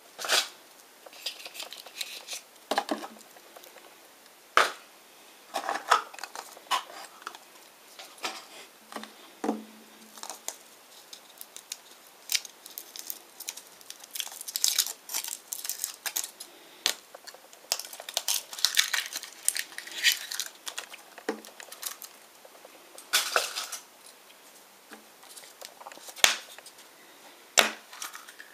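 Kinder Surprise chocolate egg being unwrapped by hand: irregular crinkling of its foil wrapper, with scattered small clicks and taps as the egg and plastic toy capsules are handled.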